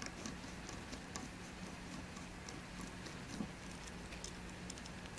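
Faint, irregular small ticks and clicks of a precision Phillips screwdriver turning tiny screws out of the metal DJI Mavic Pro gimbal housing.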